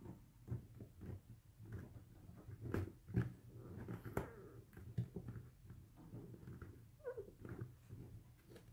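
Fingertips rubbing and squeaking over a vinyl decal on a glossy chrome helmet shell as it is pressed down to work out the air: a run of short squeaks and rubs, with one falling squeak about seven seconds in.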